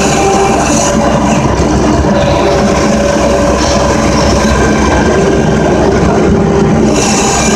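Engine of a snow-clearing machine running steadily, heard from the operator's seat.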